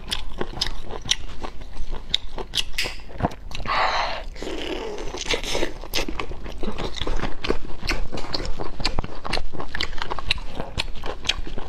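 Cooked snails being sucked from their shells and chewed: a run of sharp wet clicks and smacks, with a longer hissing slurp about four seconds in.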